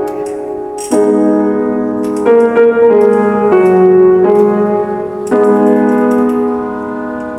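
Piano accompaniment playing a slow series of held chords, each struck and left to ring, dying away near the end.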